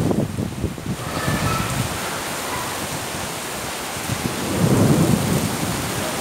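Steady rain falling, an even hiss of rain on the surfaces around, with a low rumble that swells and fades about four and a half seconds in.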